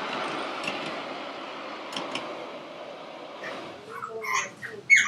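Ride-on scale model train cars running along the track with a steady rumble that fades over the first three seconds. Then short, high calls from a bird, the loudest near the end.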